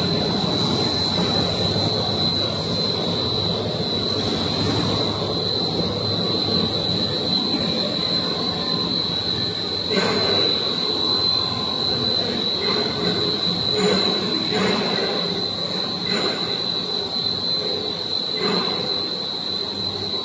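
Core-filled puff snack production line running: a steady high-pitched whine over a dense mechanical hum of conveyors and machines, with a few short knocks in the second half.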